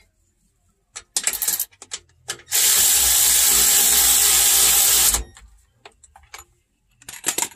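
Power ratchet running a bolt in for about two and a half seconds, stopping abruptly. A few short metallic clicks and rattles come before it and again near the end.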